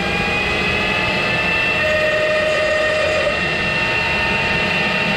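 A machine motor running steadily with a high whine made of several tones that creep slightly upward in pitch.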